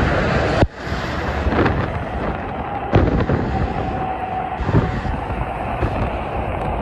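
Multi-lane highway traffic with cars and transport trucks, a steady rush of tyres and engines. It drops out abruptly less than a second in, and several sharp thumps cut through it, the loudest about three seconds in.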